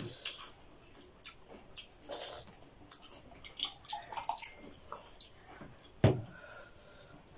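Quiet eating sounds at a table: chewing and small mouth and hand noises, scattered clicks and rustles. A single sharp thump about six seconds in.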